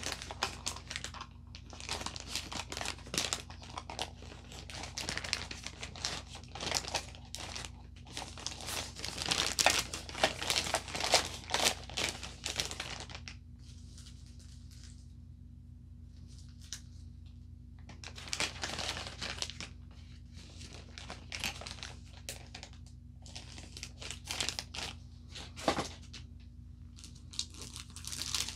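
Clear plastic packaging crinkling and rustling as it is handled and packed away, in irregular bursts with a pause of about five seconds near the middle.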